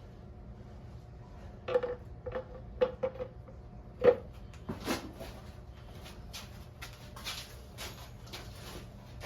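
Hard objects knocking and clinking together in a small room, some with a short metallic ring: a quick run of strikes between about two and four seconds in, the loudest near four seconds, then softer scattered taps and rustling over a low steady hum.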